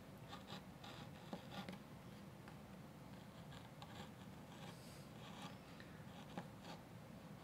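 Faint, short scratchy strokes of a small V-gouge cutting shallow feather grooves in a basswood wing carving. The carver says this gouge is not as sharp as the other.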